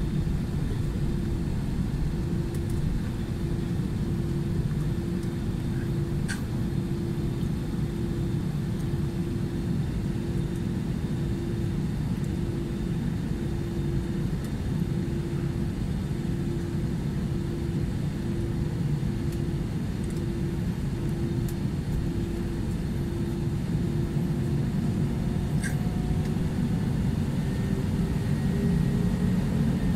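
Airbus A320-200 engine and cabin rumble heard from inside the cabin, steady, with a faint hum pulsing about once a second. Near the end the engine pitch rises and the sound grows louder as the engines spool up.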